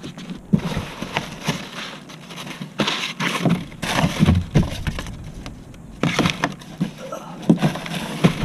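Cardboard rustling and scraping, with irregular sharp knocks, as a person shifts on cardboard and reaches under a car.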